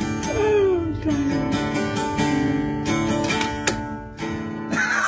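Hollow-body archtop guitar strummed and picked in steady chords. About half a second in, a wavering call slides down in pitch over the playing.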